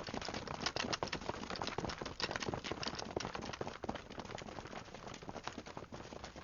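Quick, irregular footsteps and clattering of a group of soldiers moving off together, growing quieter after about four seconds.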